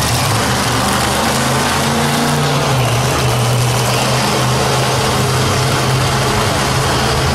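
Monster truck engine running loud and steady as the truck maneuvers at low speed.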